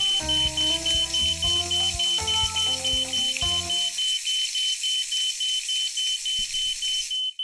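Smoke alarm beeping rapidly, about four short high beeps a second over a steady hiss, set off by a smoking pan on the stove. Music plays under it and stops about four seconds in.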